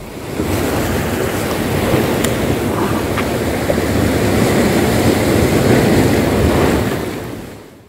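Sea surf washing and breaking against a rocky shore: a steady rush of waves that fades in at the start and fades out near the end.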